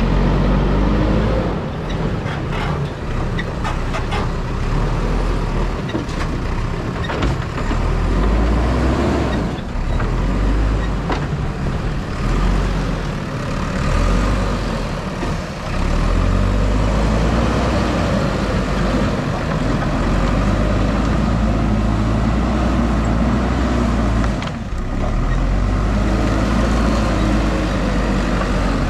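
JCB 3DX backhoe loader's diesel engine running steadily under working load, with scattered short knocks and clatters in the first half.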